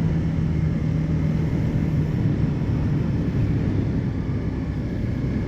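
Motorcycle running, a dense low rumble with a steady low hum that fades out about a second and a half in.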